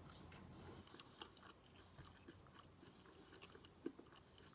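Faint close-up chewing of walnut shrimp, with small scattered crunches and clicks and one sharper crunch near the end.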